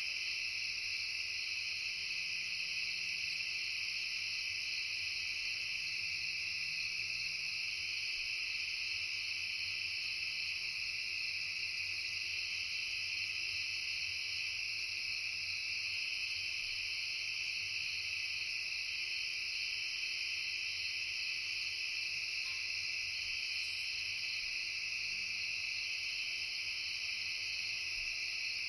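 A steady chorus of crickets and other insects: several layers of high, continuous trilling that hold even without a break.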